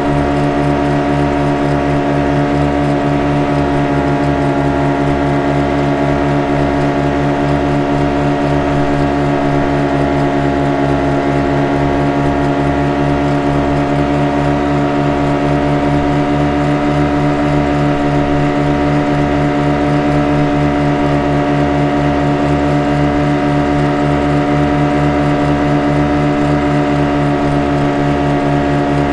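Boat engine running steadily at constant speed: an unchanging drone with a fast, even low throb.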